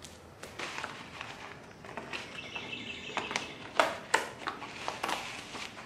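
Rubber bands being stretched and wrapped around a leather ball glove bound over a wooden block, with rustling, short squeaks and two sharp snaps about four seconds in.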